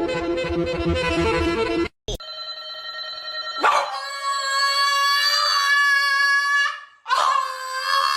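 Dog howling: two long, steady howls of about three seconds each, the second starting about seven seconds in. Background music plays for the first two seconds, then cuts off.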